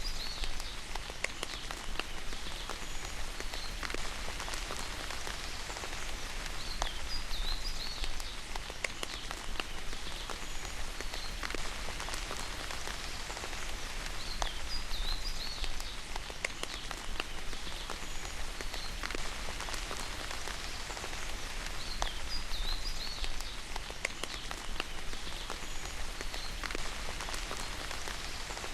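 Steady rain with scattered sharp drop ticks, and a bird's short high chirping call repeating every few seconds over it.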